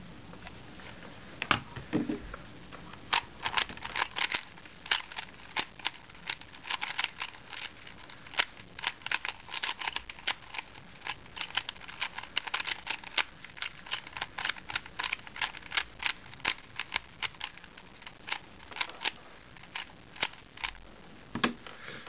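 A 3x3 plastic Rubik's Cube being turned rapidly by hand in a speed-solve: a fast, uneven run of clicks and clacks as the layers snap round. The turning starts about three seconds in, after a single sharp knock.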